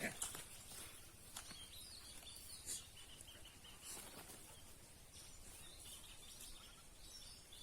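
Faint bird chirps, short calls repeated, with a few scattered rustling clicks in the first couple of seconds.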